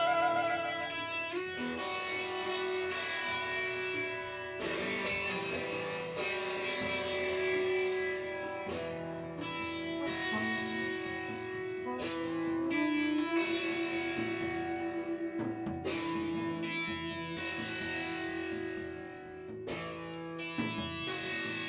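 Instrumental music on guitar through effects: long ringing notes, each new one struck every second or so, with a wavering vibrato on the note at the start.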